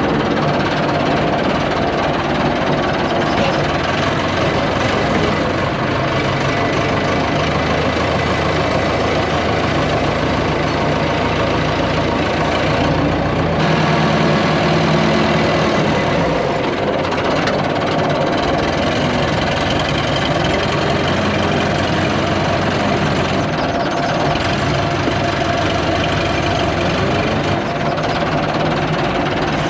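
Landini tractor's diesel engine running steadily, heard from the cab, with the sound briefly swelling and changing about halfway through.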